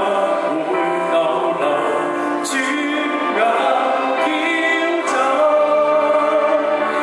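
A solo singer performing a song into a handheld microphone over backing music.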